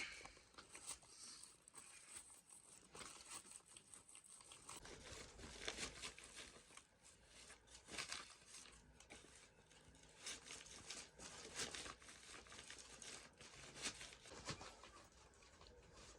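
Faint, irregular rustling and crinkling with scattered small clicks.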